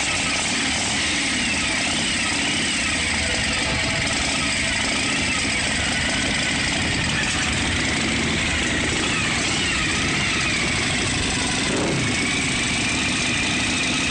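Harley-Davidson V-twin motorcycle engine running loud and steady close by, its pitch rising and falling a few times.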